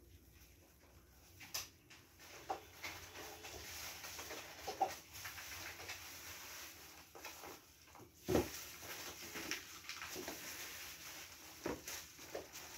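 Faint, scattered knocks, clicks and rustling of objects being handled, with a louder thump about eight seconds in.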